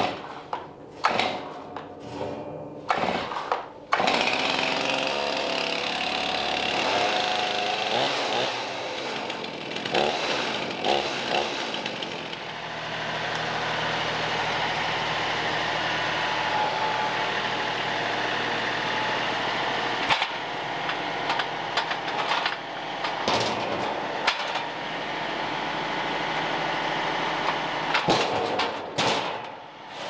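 Metal clanks as the steel frame of a chainsaw mill is handled. Then a John Deere 2038R compact tractor's diesel engine runs steadily while the tractor carries a log in its loader grapple, with a few knocks near the end as the log is set down on the table.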